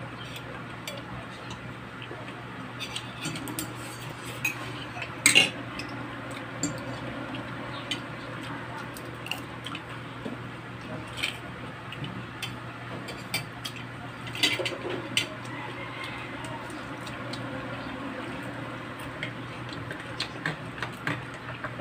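Spoon and fork clinking and scraping on ceramic plates while eating, a scatter of light taps with sharper clinks about five seconds in and again near fifteen seconds. A steady low hum runs underneath.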